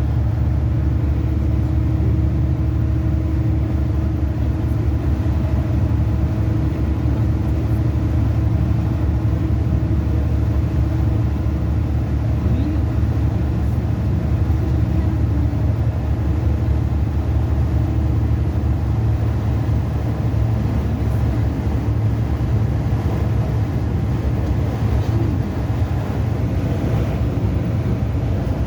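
An engine running steadily: a continuous low drone with a steady hum above it that does not change over the whole stretch.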